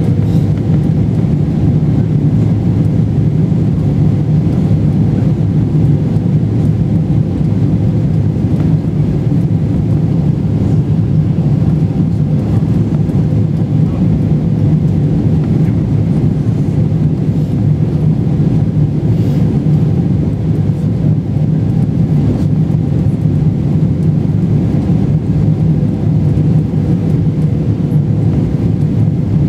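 Steady cabin roar inside a Boeing 777-300ER on approach, heard from a window seat behind the wing: the low rumble of the GE90 engines and the rush of air over the fuselage, with a faint steady hum running through it.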